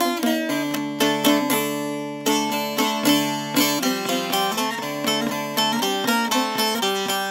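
Instrumental music: a plucked-string melody in quick notes over held bass notes.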